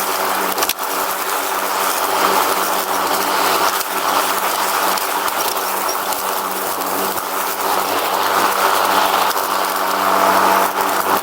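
Riding lawn mower running steadily under way, its engine humming evenly with mechanical rattling over it, and one sharp click a little under a second in.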